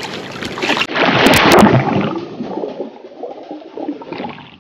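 Water splashing, then about a second in a loud, muffled rush and gurgle of water heard underwater that fades to a low murmur.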